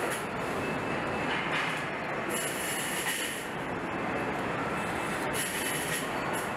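Factory-floor noise on a truck assembly line: a steady mechanical din, with short bursts of hissing about two seconds in and again about five seconds in.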